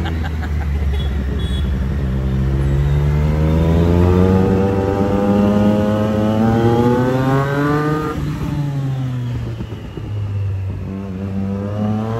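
Motorcycle engine accelerating through the gears: its pitch climbs for several seconds, drops suddenly at a gear change about eight seconds in, then climbs again near the end.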